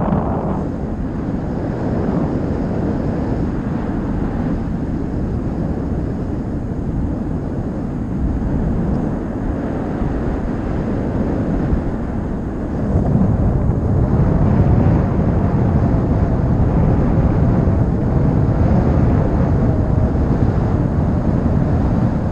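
Wind rushing over the microphone of a paraglider's head-mounted camera in flight, a steady noise that gets louder about halfway through.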